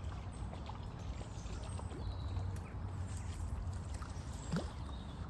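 Steady rush of a small river's flowing water with a low rumble, faint bird chirps, and one short louder sound about four and a half seconds in.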